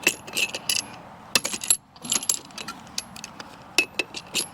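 Irregular metallic clinks and rattles from a folding lug wrench working 11/16 lug nuts off a tractor wheel, steel on steel, in several quick clusters.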